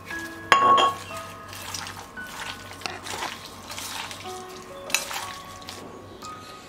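Hands squishing and mixing raw mutton with sliced onions, spices and oil in a steel bowl, making wet squelching noises at uneven intervals, the loudest about half a second in. Soft background music with held notes plays throughout.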